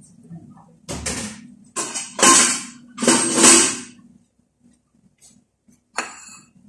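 Kitchen clatter of rummaging through cabinets and dishes: several loud bursts of knocking and rattling in the first four seconds, then one sharp knock about six seconds in.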